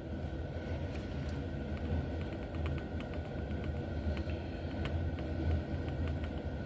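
Light, scattered clicks and ticks of tiny shims and slot car parts being handled while fitting shims onto the armature shaft, over a steady low rumble and hum.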